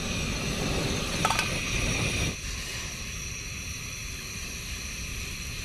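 A low rumbling noise that drops away after about two seconds, then water being poured from a steel flask into a small cooking pan.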